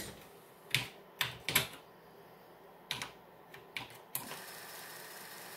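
Half a dozen separate key clicks on a computer keyboard as a disk directory command is typed, then about four seconds in a steady mechanical hum starts: the open floppy drive's motor running with a bare floppy disk, out of its jacket, mounted on the hub.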